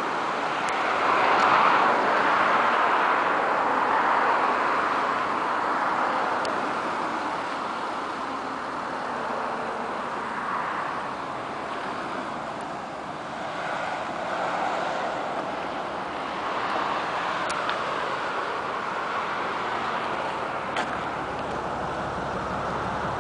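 Steady outdoor background noise, a hiss that swells and fades over several seconds, with a few faint clicks and no clear engine note.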